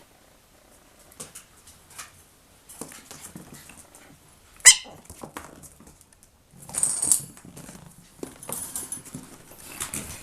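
Chihuahua puppies scrabbling and pattering about, with one short, high-pitched puppy yelp a little under five seconds in.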